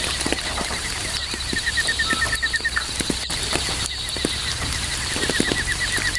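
Steady rain falling, with scattered heavy drops landing close by. Through it, crickets chirp in fast, even trains of short pulses that start and stop every second or two.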